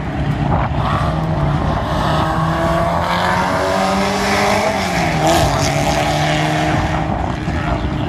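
Engine of a vintage racing sports car accelerating up the hill toward the Corkscrew, its note climbing and stepping through gear changes several times.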